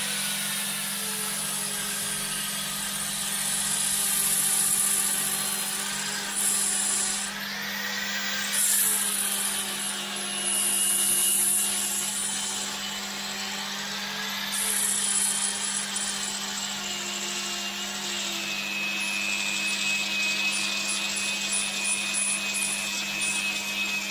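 Electric power file (finger belt sander) running, its motor whine dipping and rising in pitch as the narrow sanding belt is pressed into foam board to cut a recess, with bursts of sanding hiss. It cuts off abruptly at the end.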